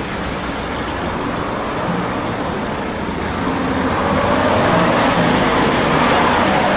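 Street traffic: cars and vans driving past close by, engine and tyre noise that grows louder about four seconds in as a vehicle passes right in front.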